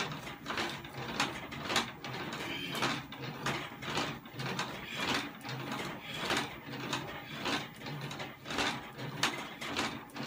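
Cast-iron weight plates clinking and rattling on a loaded barbell as it is pressed up and down in a close-grip lift: a run of short metallic clicks and knocks, about two a second.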